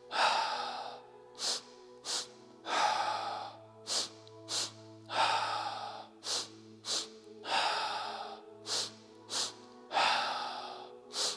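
A person doing a double-breath exercise: two short, sharp inhales through the nose followed by a long, heavy exhale, repeating about every two and a half seconds and speeding up slightly. Soft background music with held tones plays underneath.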